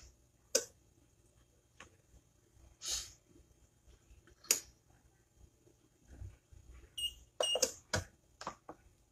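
Heat press's digital timer beeping a couple of short high electronic beeps about seven seconds in, the end of the timed press. The beeps come between a few soft clicks and rustles, and handling knocks on the press handle follow.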